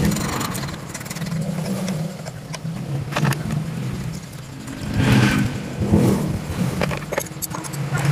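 Small generator engine running steadily, swelling briefly twice about five and six seconds in, with a few sharp clicks and knocks over it.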